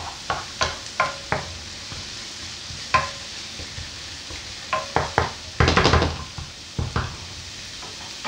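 Wooden spoon stirring chopped onion in a non-stick frying pan, with a series of sharp knocks and scrapes against the pan, some ringing briefly, and a dense scraping rattle about six seconds in. Under it, a steady low sizzle of the onion frying in olive oil.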